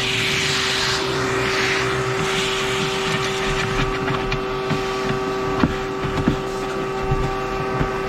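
A steady, even-pitched mechanical hum underneath light hand work: a scraping rustle in the first couple of seconds, then a few sharp clicks and taps as a small metal access cover is fitted and screwed down.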